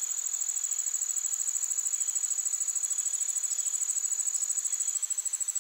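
A high-pitched, steady insect-like trill that pulses rapidly and evenly, in the manner of crickets.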